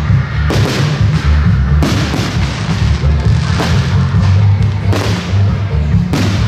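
Aerial firework shells bursting overhead, about five sharp bangs over a deep rolling rumble, with music playing loudly underneath.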